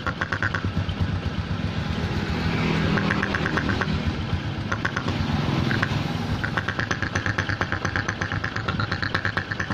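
Honda Supra X 125 single-cylinder four-stroke engine idling with a rough, snoring 'ngorok' note instead of running smoothly, the revs swelling a little for a couple of seconds. The roughness comes from an air leak that the mechanic finally traces to an engine breather hose cracked at its clamp.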